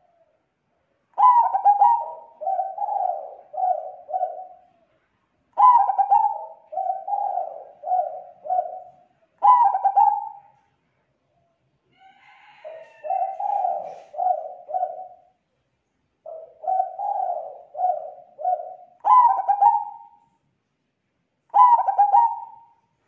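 Zebra dove cooing in repeated phrases a few seconds apart: each opens with a louder, slightly higher note, and most run on into three or four quicker, lower coos.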